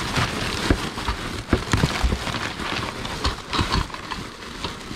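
Dishes being rummaged through in a box: irregular knocks and clinks of dishes against each other over rustling.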